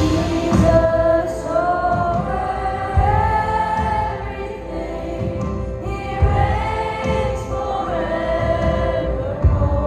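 Christian worship song: a group of voices singing long, held notes over a steady low beat.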